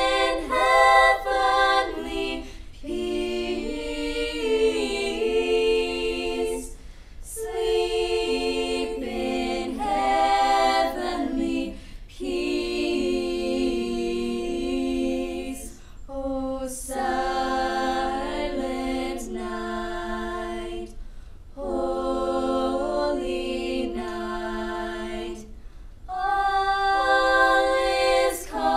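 A choir singing a cappella in several voice parts, in sustained phrases with short breaks between them.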